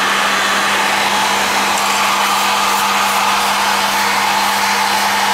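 Electric heat gun blowing steadily: an even, unbroken rush of air over a constant motor hum.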